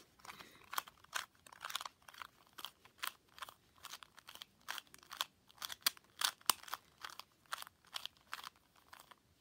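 2x2 Rubik's cube layers being turned by hand through a pattern sequence: an irregular run of quick plastic clicks and scrapes, a few turns a second.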